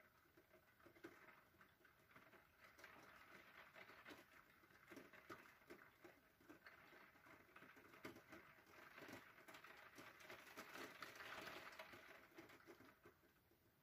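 Faint rain pattering on a window pane and the roofs outside, a steady spread of many small drop ticks, swelling a little near the end.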